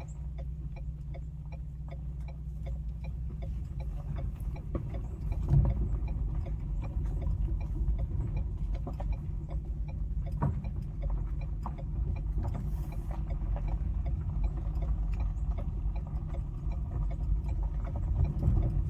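Car engine running, heard from inside the cabin as a steady low hum, with a regular light ticking over it and a single bump about five and a half seconds in.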